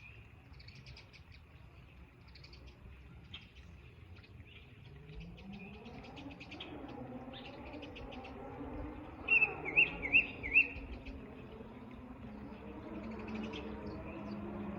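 Backyard songbirds chirping and calling, short high chirps throughout. About nine seconds in, four loud up-and-down whistled notes come in quick succession. A low hum grows louder through the second half.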